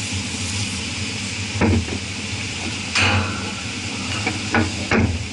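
Aerosol spray can with a straw nozzle spritzing the rusted hub and shaft of a cooling-tower motor pulley in several short hissing bursts, the last three in quick succession near the end, over a steady low hum.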